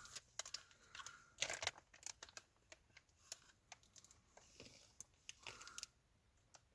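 Faint crinkling and scattered small clicks of packaging being handled as the radio's wiring and a small box are taken out.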